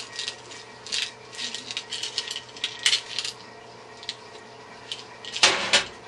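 Small metal computer screws clinking and rattling against each other in irregular, quick clicks as they are sorted through for the right size. A louder rattle comes near the end.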